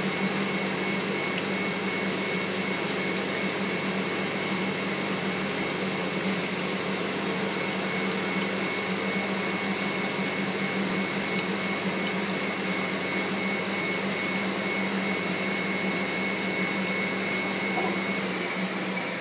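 Hurco BMC 20 CNC vertical machining center milling metal: the spindle-driven end mill runs steadily through the cut with a high whine over a low hum. The whine stops near the end.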